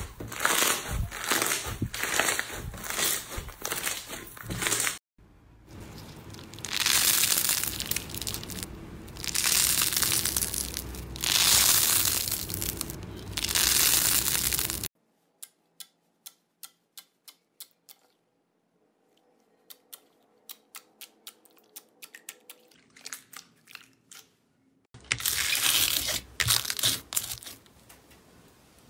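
Hands squeezing and pressing slime, with sticky crackling and crinkling and loud tearing swells. In the middle comes a quiet stretch of small, evenly spaced clicks, and near the end foam-bead slime (floam) crunches as it is squeezed.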